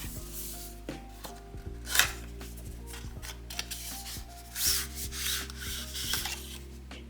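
Packaging being handled, with rubbing and sliding swishes over soft background music. The sharpest swish comes about two seconds in, and a longer stretch of rubbing runs from about four and a half to five and a half seconds.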